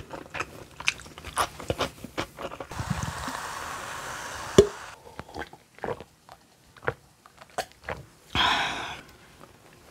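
Chewing with small clicks at first, then cola poured from a can into a glass, a steady fizzing pour for about two seconds ending in a clink, followed by a gulp near the end.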